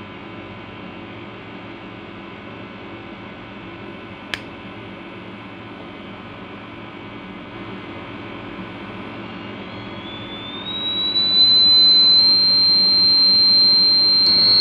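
Buzzer of a homemade fire alarm sounding one steady high-pitched tone, sliding up in pitch as it comes on about ten seconds in. Before it there is a low steady hum and a single click about four seconds in.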